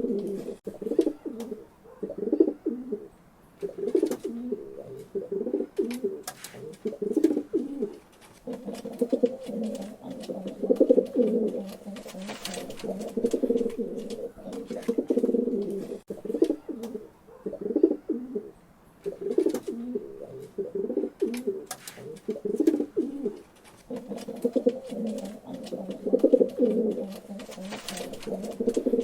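Pigeons cooing: low, throaty coos in repeated phrases of a few seconds, with short pauses between, and faint clicks and rustles.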